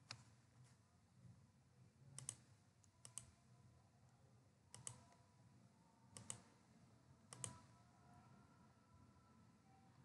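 Faint, sharp clicks of computer input, about six of them spread a second or so apart, over near silence.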